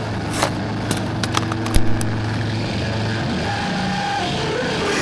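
Background music with held, steady synth-like notes that shift in pitch every second or two. A few sharp clicks or snaps fall in the first two seconds.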